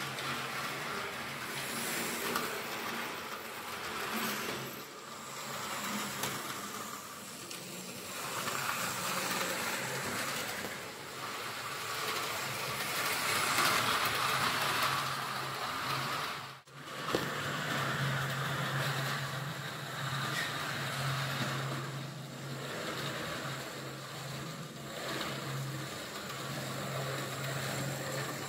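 Piko model steam locomotive running along the track: a steady motor hum under a continuous rattling noise from the wheels and running gear, swelling and fading as it goes. The sound drops out for a moment a little past halfway.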